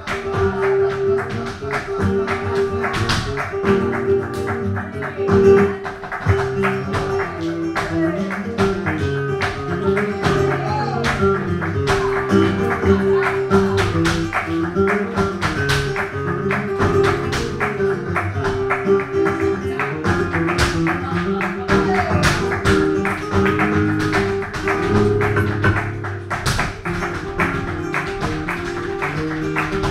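Live flamenco soleá por bulerías: Spanish guitar playing, with many sharp percussive strikes from handclaps and the dancer's footwork keeping the rhythm.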